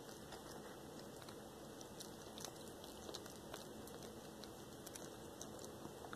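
A black tabby cat chewing raw Cornish hen up close, with many small, irregular crunches and clicks of teeth on food.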